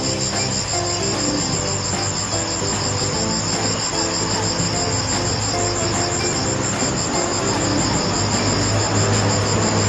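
Crickets chirping in a steady, evenly pulsing high chorus, with short low pitched notes and a low hum underneath.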